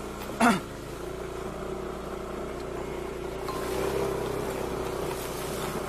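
Yamaha Aerox 155 scooter's single-cylinder engine running at steady revs, rising a little about four seconds in, as the scooter is ridden through a shallow stream.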